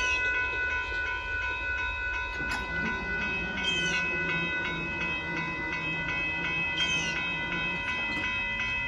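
Amtrak passenger train rolling past a road crossing, its cars rumbling steadily over the rails. The crossing's warning bell rings on continuously over it.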